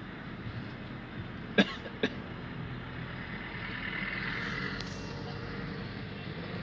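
A man coughing twice in quick succession, about half a second apart, over the steady noise of a car's cabin.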